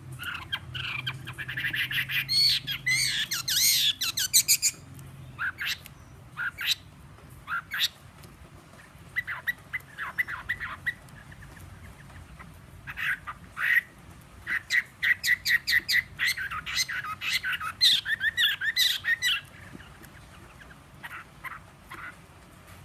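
Chinese hwamei (họa mi) singing in its cage. Two long runs of fast, varied whistled phrases come at the start and again past the middle, with scattered short notes between them. The owner says the bird's voice is slightly hoarse.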